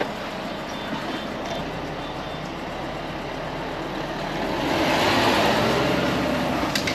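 Road and engine noise of a Volvo FH lorry on the move, heard inside the cab; it swells louder for the last two seconds or so.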